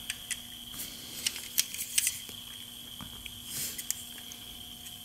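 Small clicks and taps of fingers handling a die-cast metal model car, a cluster of sharp ticks about one to two seconds in, over a faint steady high-pitched hum.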